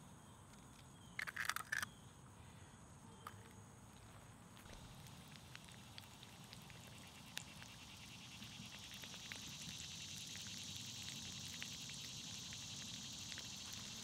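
An egg frying in a small hand-forged egg spoon over campfire coals: a fine sizzle with spitting crackles comes in a few seconds in and grows steadily louder. A short burst of sharp clicks comes about a second and a half in.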